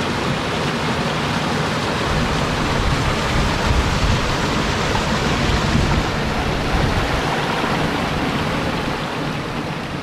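A small waterfall and creek cascade splashing and running steadily over sandstone rocks into a pool, a close, even rush of water.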